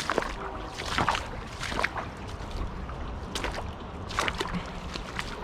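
Footsteps wading through shallow creek water, a splash or slosh roughly every second, over a low rumble of wind on the microphone.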